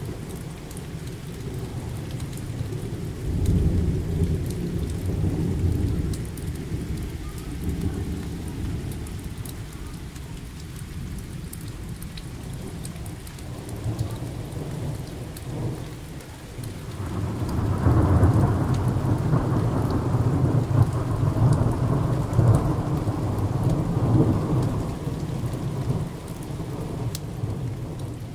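Thunder rumbling in a thunderstorm: a low roll a few seconds in, then a longer, louder rumble that builds a few seconds after a lightning flash and rolls on for several seconds before fading. Steady rain falls throughout, with fine drop ticks.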